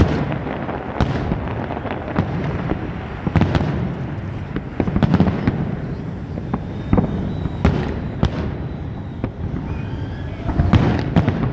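Fireworks going off in an irregular barrage of sharp bangs and crackles over a continuous low rumble.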